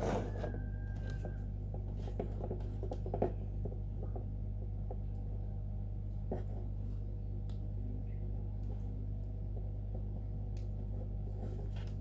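Plastic wiring-harness connectors and wires of a central-lock kit being handled and plugged together on a tabletop: scattered small clicks and rustles, the sharpest about three seconds in, over a steady low hum.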